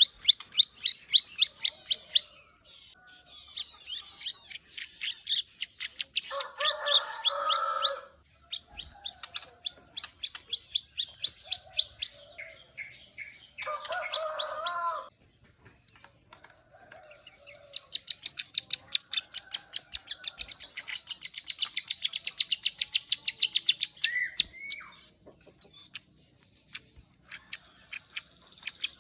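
Ciblek sawah (a prinia) singing its 'klik ngeriwik' song: long runs of rapid, sharp, high-pitched clicking notes broken by short pauses, with two harsher, lower buzzy rattles about six and fourteen seconds in.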